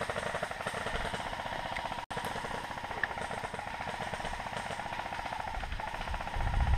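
Airsoft electric gun firing on full auto, a fast, even mechanical rattle that keeps going. A low rumble on the microphone builds near the end.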